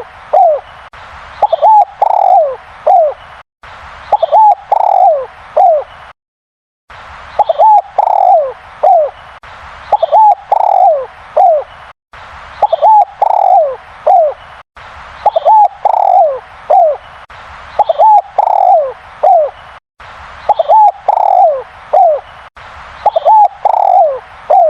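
Spotted dove (derkuku) cooing over and over. Each phrase is a few quick notes followed by longer falling coos, and a phrase comes about every two and a half seconds. The sound cuts out briefly between some phrases.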